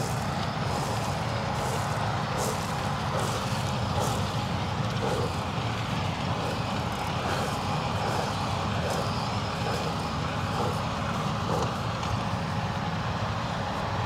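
Fendt Ideal 7 combine harvester with its seven-cylinder engine running steadily while threshing winter wheat, a constant mechanical drone with faint scattered ticks.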